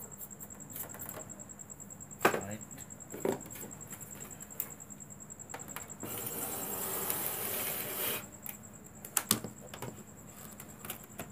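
Handling sounds on a wooden workbench while a CRT television is being serviced: a few sharp knocks and clatters, the loudest about two seconds in, and a hiss lasting about two seconds in the middle.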